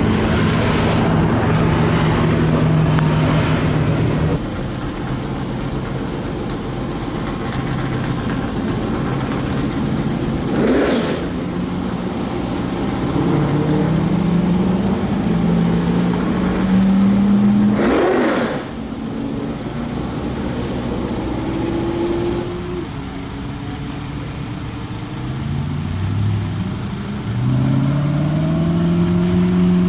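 Supercar engines accelerating past on a wet track one after another, their notes rising several times as they pull away, starting with a Mercedes-AMG Project One. Two short rushes of hiss, about a third of the way and halfway through, fit tyres throwing up spray from the standing water.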